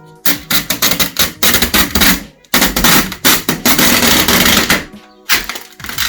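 Protective plastic film being peeled off an acrylic PC case side panel: a loud, irregular crackling that runs for several seconds, pauses briefly, then turns into a smoother, steadier rip near the end.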